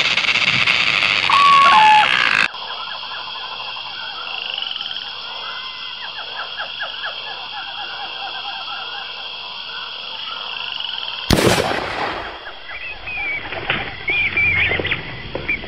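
A louder segment with whistling tones cuts off sharply about two and a half seconds in, giving way to a steady night chorus of crickets and frogs. About eleven seconds in, a single gunshot from a hunting gun cracks out, and the chirping carries on after it.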